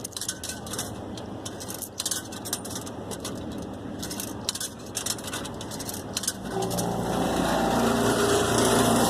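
Light clicking and rattling, then about six and a half seconds in a motor engine starts to be heard, running steadily at one pitch and louder than anything before it.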